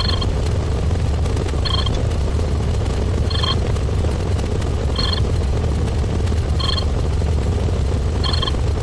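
A steady low rumble with a short, high-pitched beep repeating evenly about every second and a half, six times.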